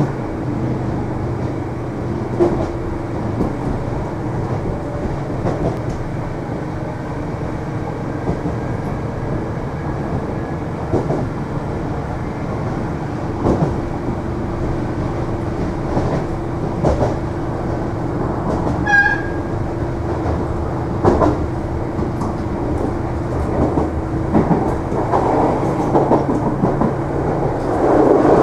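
Interior running noise of an Irish Rail 8300 class DART electric train under way: a steady rumble and hum with scattered clicks and knocks. A brief high tone sounds about two-thirds of the way through, and the noise grows louder near the end.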